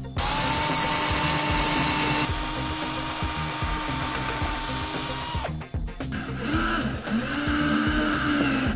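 Cordless drill running steadily for about five seconds, drilling screw holes sideways into laser-cut plywood parts. It stops, then runs again in shorter spins near the end.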